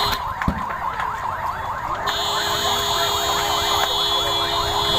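An electronic siren yelps continuously, a quick rising sweep repeating several times a second. About two seconds in, a steady high tone and a lower steady tone join it. A single sharp knock sounds about half a second in.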